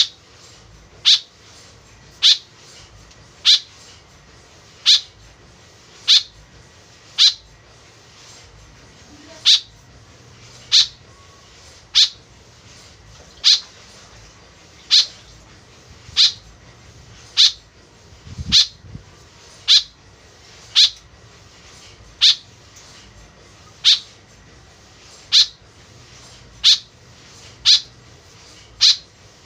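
White-breasted woodswallow giving short, sharp calls over and over at an even pace, about one every 1.2 seconds, as a bird-trapping lure call.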